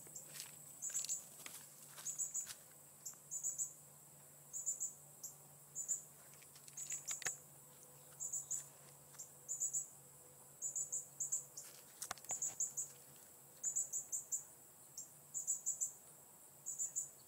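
Faint, high-pitched chirping in short trains of two to four quick pulses, repeating about once a second.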